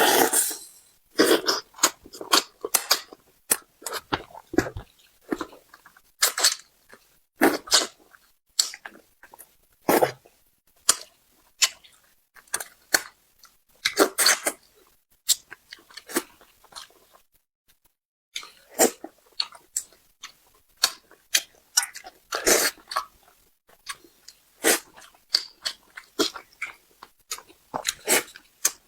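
Close-miked chewing and mouth sounds of someone eating braised carp: irregular short wet clicks and smacks, with a pause of about a second and a half past the middle.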